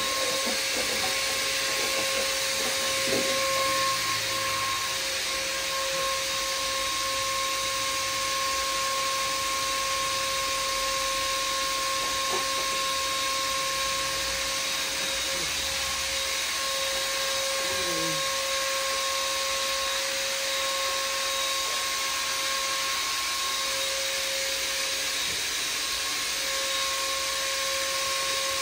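Wet/dry shop vacuum running steadily: a constant rushing hiss with a steady motor whine.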